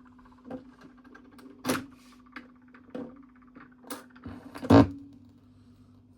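Opening of a 12-inch 45 rpm vinyl single: scattered clicks and thumps over a steady low hum, with the loudest thump about three-quarters of the way in.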